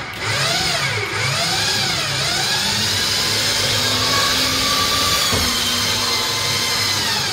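Warn electric winch motor running under load as it hauls a lawn tractor in on its cable, its whine dipping and rising in pitch. There is a brief clunk about five seconds in.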